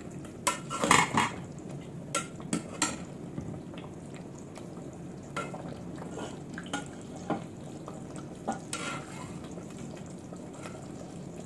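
Steel spatula stirring chicken curry in an aluminium pot, clinking and scraping against the metal. The clinks come thick in the first three seconds, then only now and then.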